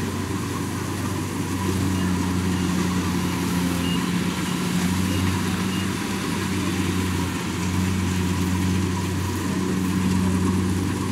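Kubota rice combine harvester's diesel engine and threshing machinery running steadily under load while it cuts rice. It is a continuous mechanical hum, and its lowest note swells and eases several times.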